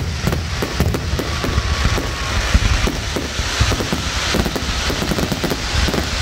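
Fireworks display in a dense barrage: a rapid, unbroken run of deep booms, sharp bangs and crackling as many shells launch and burst together.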